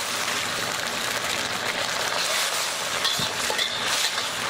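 Sweet-and-sour sauce sizzling in a hot wok as it is stirred, thickening with cornstarch slurry.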